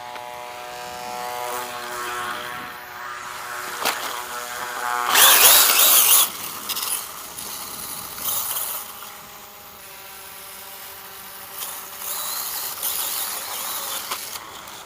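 Brushless electric motor of a ZD Racing Phantom 400 RC dirt bike whining steadily as the bike sits stuck in sand. About five seconds in there is a loud rushing burst of noise lasting about a second.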